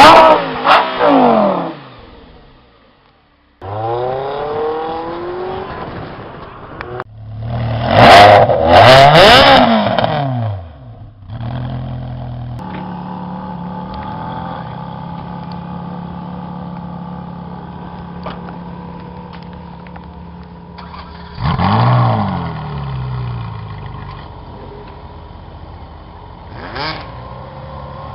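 High-performance sports car engines in a run of short clips: loud revving, an engine note falling in pitch, a hard rev with several sharp cracks, then a long steady idle with two brief throttle blips.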